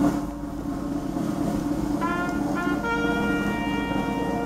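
Brass music starting suddenly, a low held note first, with a melody line of higher notes coming in about two seconds in.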